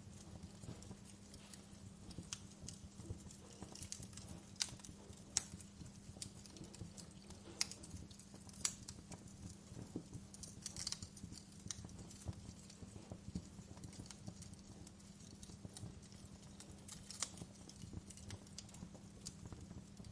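Wood fire burning in a fireplace, crackling with irregular sharp pops and snaps over a low steady hum.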